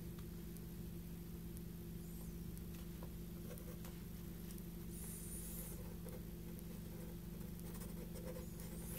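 Pencil sketching on Saunders Waterford 300 gsm cotton watercolour paper: faint, intermittent scratching strokes, with a steady low hum underneath.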